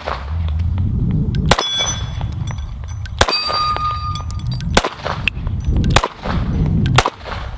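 Mossberg MC1sc 9mm subcompact pistol firing five shots about a second and a half apart. The first two hits leave steel targets ringing with a clear metallic tone.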